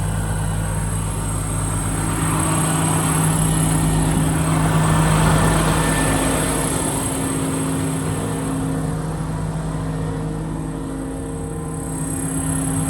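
International DuraStar's 9.3-litre MaxxForce diesel engine idling steadily, growing a little louder a few seconds in and easing back.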